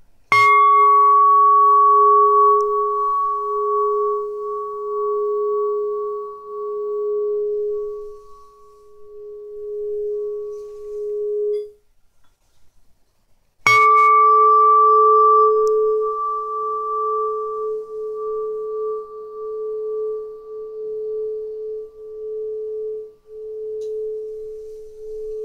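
Hanging aluminium tuning tube, tuned to a low concert A, struck twice. Each strike rings out as a steady pure tone with a fainter high overtone, pulsing slowly in loudness as it fades. The first ring stops suddenly about 11 seconds in; the second strike comes about 13½ seconds in and is still ringing at the end.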